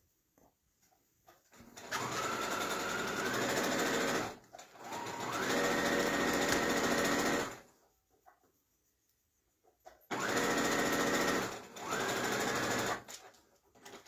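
Brother electric sewing machine stitching in four short runs, the motor whine rising as it picks up speed at the start of each run, with small clicks between the runs as the fabric is handled.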